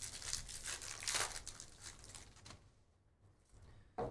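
A baseball card pack's wrapper crinkling as it is torn open, for about two and a half seconds, with a short click near the end.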